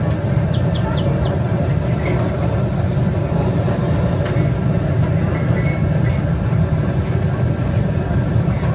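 Steady low rumble, with a bird chirping a quick series of falling notes during the first second or so.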